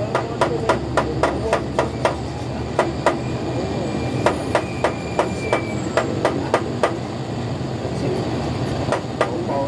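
Hammer tapping repeatedly, about three to four quick strikes a second at first, then slower, spaced strikes, over a steady low hum.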